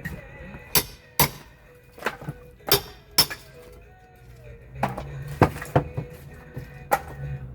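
Irregular sharp knocks and clanks of hand demolition: a pry bar and hammer striking and levering an old wooden door, about nine impacts spread over several seconds.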